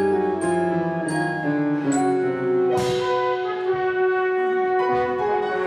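Orchestral background music with brass holding long chords, and a crash about three seconds in.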